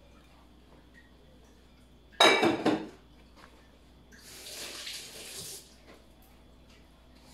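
A dish or bowl set down with a ringing clatter about two seconds in, the loudest sound. A softer hiss follows for about a second and a half.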